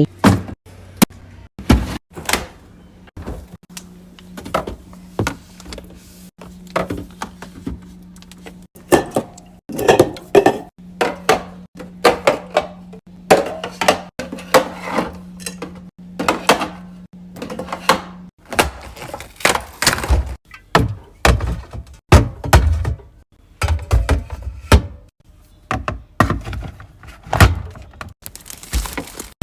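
Groceries and containers being handled and set down during a fridge or kitchen restock: a long string of irregular thunks and clacks. A steady low hum runs under them through the first half or so.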